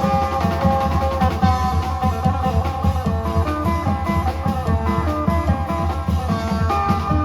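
Amplified Isan phin playing a fast stepping melody over a dense rhythm of klong yao long drums and percussion.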